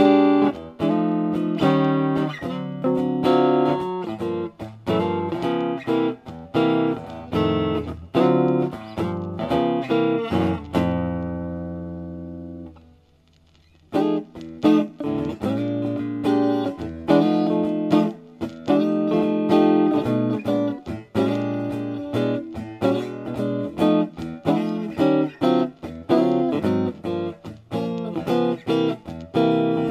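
Tokai Silver Star electric guitar with three single-coil pickups being played, a run of picked notes and chords. About eleven seconds in a chord is left to ring and fades almost to nothing, and the playing starts again a second or so later.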